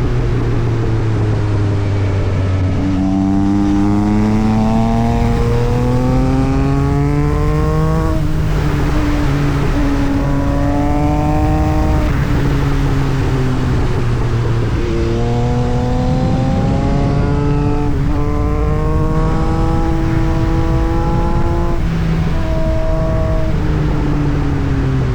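Yamaha MT-09 SP's three-cylinder engine through an Austin Racing exhaust, pulling hard with the pitch climbing in long steps. The pitch drops sharply about eight seconds in and climbs again, falls away for a few seconds, then climbs once more before dropping near the end.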